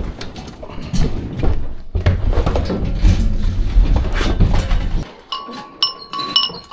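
A hand truck loaded with plastic storage bins is wheeled along, rumbling and rattling over concrete and onto a plywood floor. About five seconds in, a hanging metal dinner bell is struck several times and rings with clear, lasting tones.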